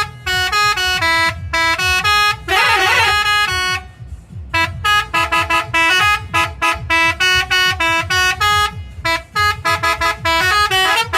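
Indonesian tour bus's multi-tone 'telolet' musical horn playing a fast tune of short, blaring notes, with a wavering trill about two and a half seconds in and a brief pause near four seconds.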